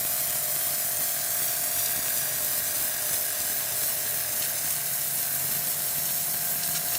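Electric pressure washer running, its pump and motor giving a steady whine while the jet hisses onto the yard, stripping off moss and dirt.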